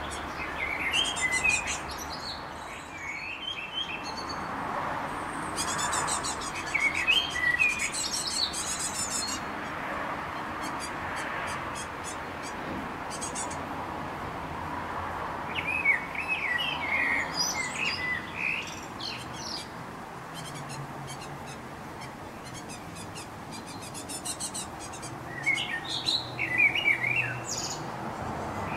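Great tits calling in four bursts of high chirps and fast ticking calls: newly fledged young begging to be fed by a parent.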